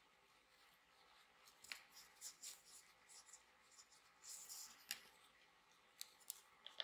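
Faint rustling of yarn as a crochet hook is worked through stitches by hand, with a few light clicks scattered through.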